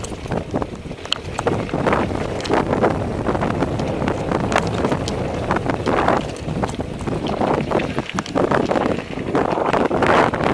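Mountain bike descending a rocky dirt singletrack: wind rushing over the microphone and tyres rolling over stones and dirt, with frequent sharp knocks and rattles as the bike jolts over rocks.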